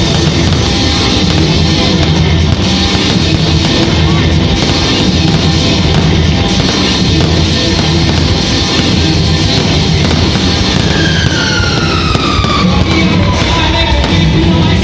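Loud rock music, with a sliding tone falling in pitch over the last few seconds.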